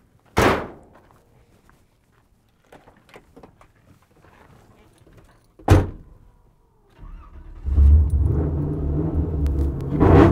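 Hood of a 1974 Chevy C10 pickup slammed shut, a truck door slammed about six seconds in, then its aluminum LS6 V8 starts about seven seconds in and runs loudly, louder near the end. The exhaust is mid-length headers into a short 4-inch Dynomax bullet muffler and dumps ahead of the axle with no crossover pipe, the setup behind its famous shrieking sound.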